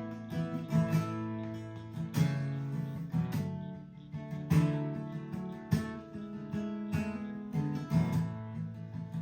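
Background country song in an instrumental stretch between verses: strummed acoustic guitar with a steady beat.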